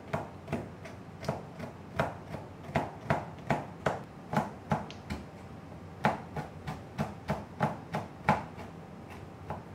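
Kitchen knife chopping chocolate discs into shavings on a plastic cutting board: a steady run of knocks, about two to three a second, with a short break about halfway through.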